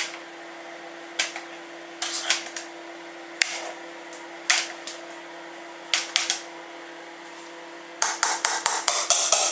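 Hand potato masher knocking against a metal saucepan while mashing potatoes: scattered clanks at first, then a quick run of about ten knocks near the end. A steady hum from a running microwave sits underneath.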